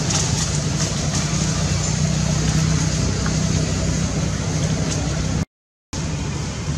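Steady background noise with a low, even hum underneath, much like an engine running nearby; it drops out to silence for about half a second near the end, then resumes.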